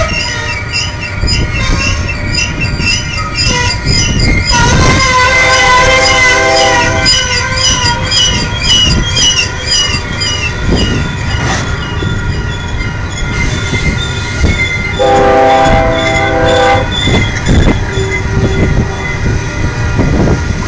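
Loaded coal hopper cars rolling past on steel wheels, with a steady rumble and a continuous wavering, high-pitched squeal of wheels against the rail. Twice, about ten seconds apart, a lower chord of several notes sounds for about a second and a half.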